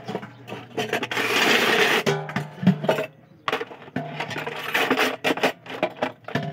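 Dishes being washed by hand: scrubbing and scraping, with clinks and knocks of plates and utensils.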